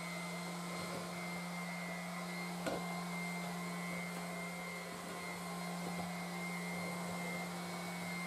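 Electric 5-inch random orbital sander running freely off the work, a steady motor hum, with one light knock nearly three seconds in.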